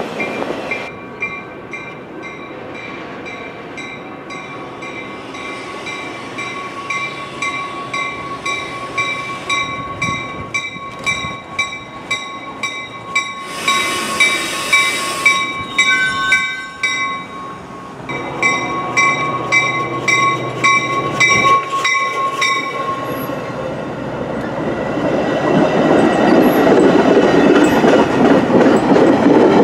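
Train on the BNSF mainline. Its rolling noise drops away in the first second. Through the middle, high steady ringing tones run with a fast, regular clicking, and train noise builds again from about 24 seconds in, staying loud to the end.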